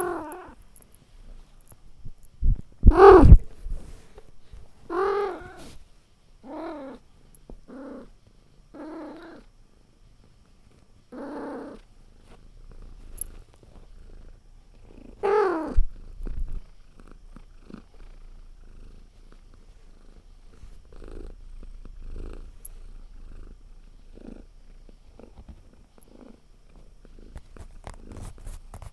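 Domestic cat meowing about eight times over the first half, with the loudest meows near 3 s and 15 s, then purring steadily through the second half.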